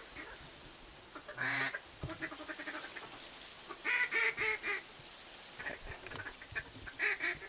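Short duck and goose calls in several groups: a single call, then a run of four quick notes, then a few more brief notes near the end.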